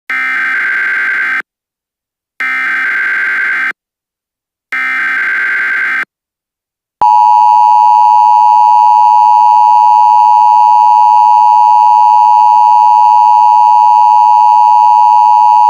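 Emergency Alert System signal: three short bursts of SAME header data tones, each lasting about a second with short gaps between them. From about seven seconds in comes the loud, steady two-tone EAS attention signal.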